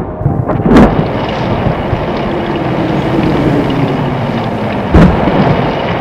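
Thunderstorm sound effect: two sharp thunder cracks, one about a second in and one near the end, over a steady rush of rain.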